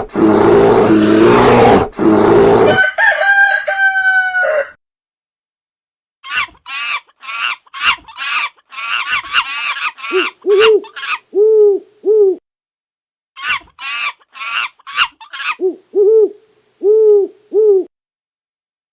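A loud animal roar that ends about three seconds in, then a rooster crowing once. This is followed by two runs of short, repeated hen clucks with a pause between them.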